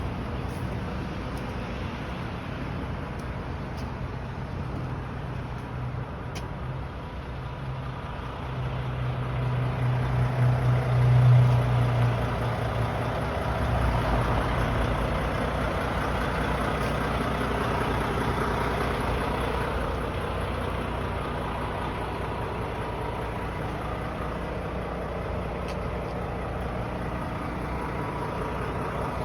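Truck engine idling: a steady low drone that swells and grows louder about ten seconds in, then settles into a deeper rumble from about fourteen seconds on.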